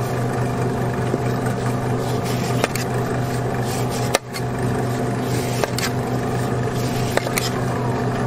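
Steady mechanical hum of a running motor, with a few short knife scrapes and clicks as melon rind is sliced off. The hum briefly drops out about four seconds in.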